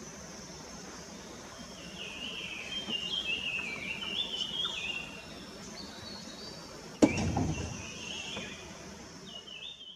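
A songbird singing warbled phrases of quick stepping notes, twice, over a steady high hiss of outdoor background; a sudden low thump and rumble comes about seven seconds in.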